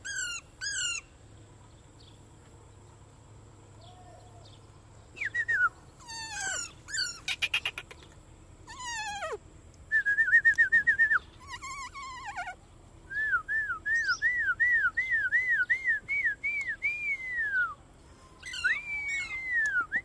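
Parrot whistling and calling: two short calls, a few seconds' pause, then falling whistles, a fast warbling trill, and a run of about a dozen quick arched whistled notes at roughly two and a half a second, ending on a long falling whistle.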